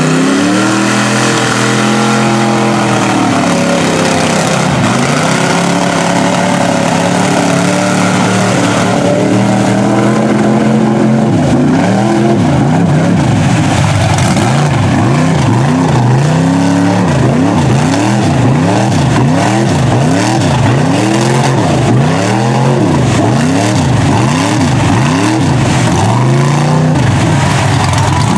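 Tractor-tire mud truck's engine revving hard while it pushes through a deep mud pit. It climbs in the first couple of seconds and holds high for several seconds. From about the middle on, it rises and falls about once a second as the driver works the throttle.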